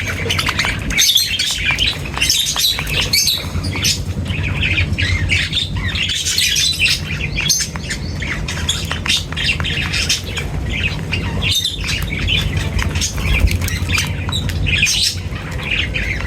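A flock of birds chirping and squawking, a dense chatter of many overlapping calls, over a steady low background rumble.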